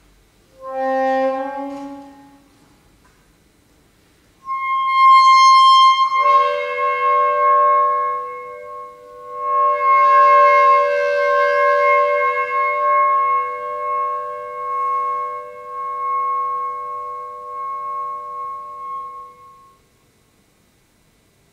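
Solo saxophone: a short two-note phrase, a pause, then a long held high note. About two seconds into the note, lower tones join it, and the saxophone sustains them together as a multiphonic chord before it breaks off near the end.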